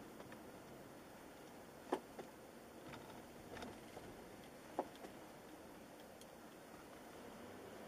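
Faint, steady cabin noise of a car rolling slowly, picked up by a dashcam's built-in microphone, with a few sharp irregular clicks: the loudest about two seconds in and again just before five seconds, smaller ones in between.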